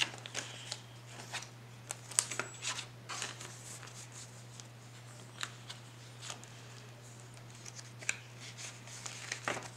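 Paper and plastic handling at a cash-envelope ring binder, with a pen being used on the pages: scattered light clicks and short rustles at irregular intervals.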